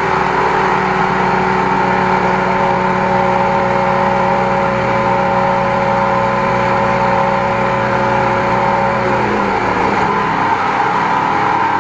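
Engine-driven high-pressure sewer jetter running steadily while its hose is worked down a grease-clogged drain line. Part of its tone drops out about nine seconds in.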